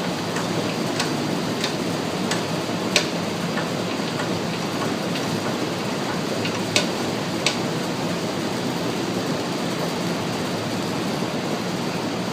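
Roller guided-bend test machine bending a welded steel test strip: a steady rushing noise with a few sharp metallic clicks over the first three seconds and two more about seven seconds in.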